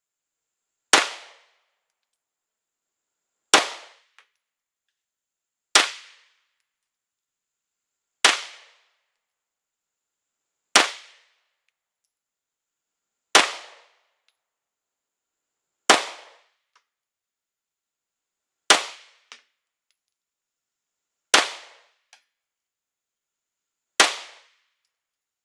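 CZ P10C 9mm pistol fired in slow, deliberate single shots for accuracy: ten sharp reports spaced about two and a half seconds apart, each trailing off in a short ring.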